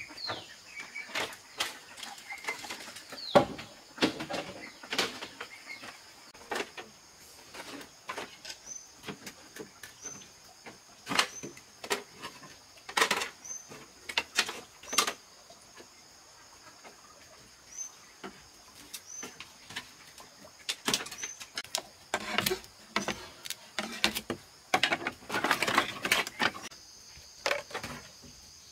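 Irregular knocks and clattering of hard objects, clustered about a third of the way in and again near the end, over a steady high insect chorus.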